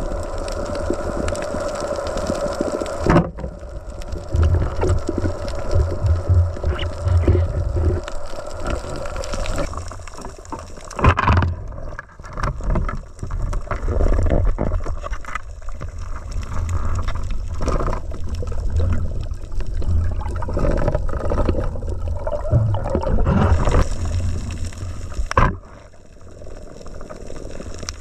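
Underwater sound on a diver's camera: rumbling water movement and bubbling, with several sharp knocks, the loudest about eleven seconds in and another near the end. A steady hum in the first three seconds cuts off suddenly.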